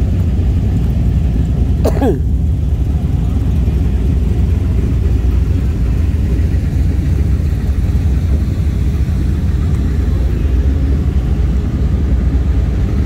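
Car running at low speed, a steady low engine and road rumble, with a brief squeal that glides quickly down in pitch about two seconds in.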